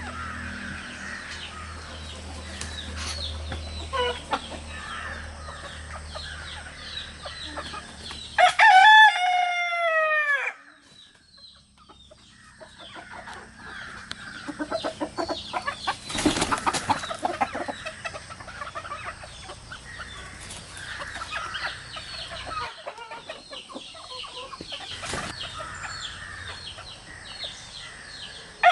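A rooster crows once, loud and clear, about a third of the way in, its long call dropping in pitch at the end. Hens cluck and chatter throughout, and another crow starts right at the end.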